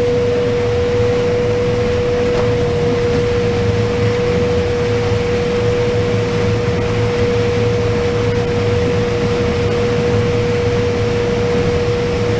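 Combine harvester running steadily, heard from inside the cab: a constant low rumble with one steady high whine held over it.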